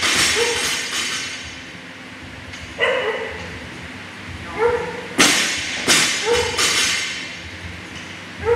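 Barbell loaded with rubber bumper plates dropped onto a gym floor about five seconds in, landing with three hard thuds in quick succession as it bounces. A dog yips several times in short high calls.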